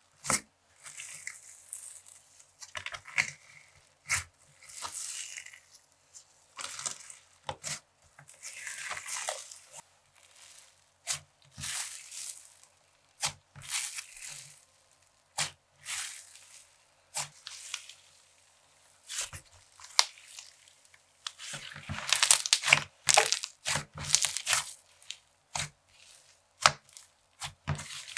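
Hands poking, squishing and stretching an icee slime studded with marshmallow beads, giving a string of sticky crackles and tearing pops. They come thickest and loudest for a few seconds near the end.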